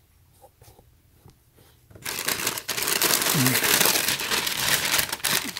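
Tissue paper crinkling and rustling as it is pulled and crumpled out of a shoebox. It starts about two seconds in, after a few faint handling clicks, and runs dense and loud to the end.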